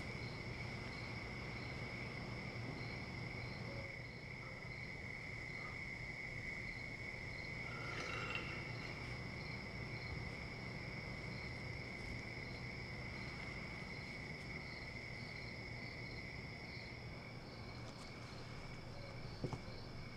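Crickets chirping: a steady high trill, with a second, higher chirp pulsing about twice a second above it. The steady trill drops out about seventeen seconds in.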